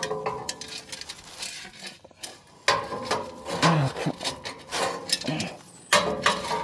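Hay baler pickup guard being worked into place by hand: irregular scraping, rubbing and clinking of parts, with sharp knocks about three seconds in and again near the end.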